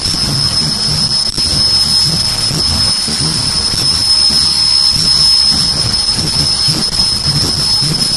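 High-speed automatic face mask making machine (inner ear-loop type) running: a steady high whine over continuous machine noise, with a low pulse repeating through it.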